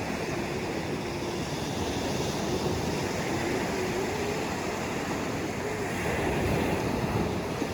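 Steady rush of ocean surf on the shore, swelling a little about six seconds in.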